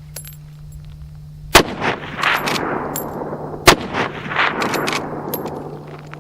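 Two rifle shots from a Marlin 30TK lever-action in .30-30, about two seconds apart, each followed by a long rolling echo. Light metallic clicks from the lever being worked fall between them.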